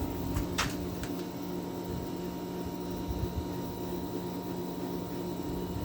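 2009 GE 10,000 BTU window air conditioner running: a steady compressor hum with an even rush of fan air, the unit cooling with frost on its coils and blowing warm air out the back. A few light clicks in the first second.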